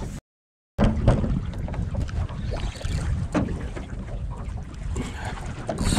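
Wind buffeting the microphone over choppy water around a small boat, with a few light knocks and a brief dropout to silence just after the start. Just before the end a fishing reel starts to whir.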